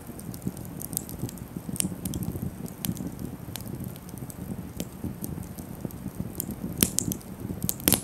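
Wood campfire burning: a low flutter of flames under scattered sharp crackles and pops from the burning sticks, the two loudest pops near the end.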